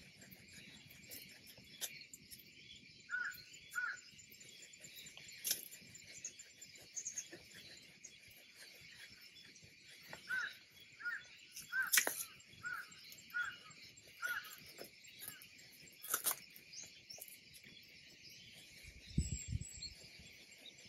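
Outdoor chorus of insects as a steady high hiss. Over it a bird calls a short note again and again, most often in the middle of the stretch. Three sharp snaps come from branches of a shikuwasa citrus tree being cut during harvest, the middle one the loudest, with a low rumble near the end.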